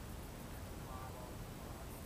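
Faint steady low background rumble with no fireworks bursting, and a brief faint distant voice about a second in.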